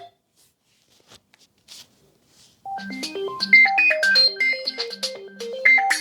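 Infinix Zero Ultra ringtones: one cuts off at the start, then a gap of about two and a half seconds with a few faint ticks, then the next ringtone begins, a quick melody of bright notes.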